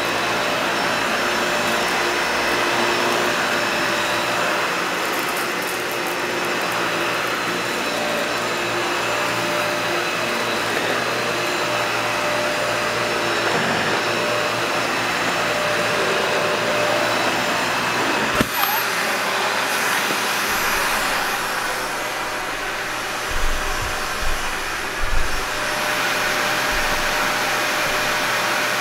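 Dyson Ball Animal upright vacuum cleaner running steadily as it is pushed over carpet: a constant rush of air with a motor whine. A single sharp click comes about two-thirds of the way through, and a few low knocks follow a few seconds later.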